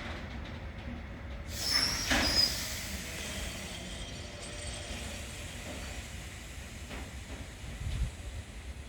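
Freight train of Eas freight wagons rolling past with a steady low rumble. A brief high-pitched wheel squeal comes about two seconds in, and a low thump near the end.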